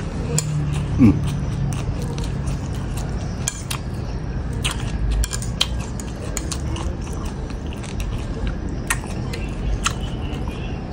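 Close-up eating sounds: a man chewing mouthfuls of spicy squid and lotus-stem salad, with many short clicks of a metal spoon against a ceramic plate. A short falling tone about a second in is the loudest moment.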